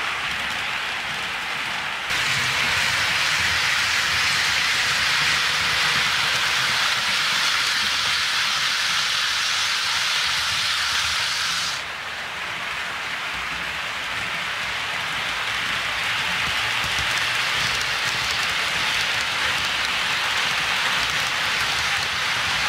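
HO scale model trains rolling along sectional track: a steady rushing hiss of small metal wheels running on the rails. It steps up in loudness about two seconds in and drops back about twelve seconds in.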